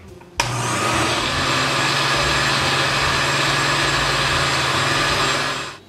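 Countertop blender running with a load of ice cream, eggnog and ice cubes. It starts suddenly about half a second in, holds a steady motor hum, and stops just before the end.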